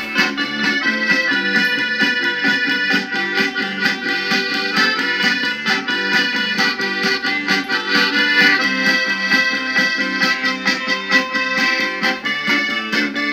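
Live band music: an instrumental passage of a song, with sustained melody notes over a steady accompaniment and no singing.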